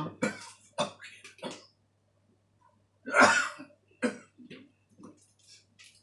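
A person coughing, loudest once about three seconds in, with a few short clicks around it.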